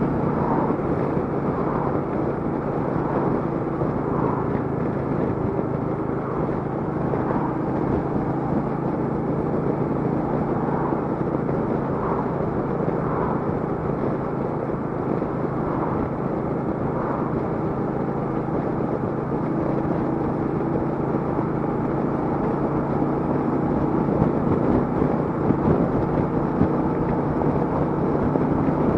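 Royal Enfield Meteor 350's single-cylinder engine running steadily at cruising speed, heard from the saddle under a rush of wind and road noise, growing a little louder near the end.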